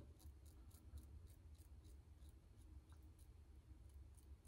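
Faint short scrapes of an Aylsworth Drakkant double-edge safety razor cutting five days' stubble on the upper lip, about three strokes a second.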